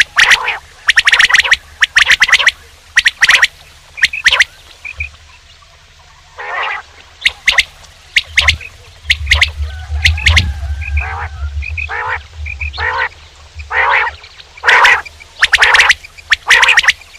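Male quail calling loudly, short calls repeated in quick clusters with brief pauses between groups. A low rumble runs underneath the middle of the stretch.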